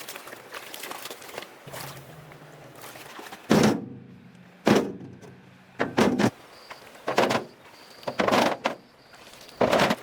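A series of six heavy thuds or strikes, roughly one every second and a bit, starting about a third of the way in.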